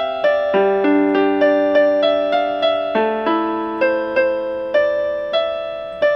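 Background piano music: a melody of single struck notes, about three a second, each fading, over held lower notes.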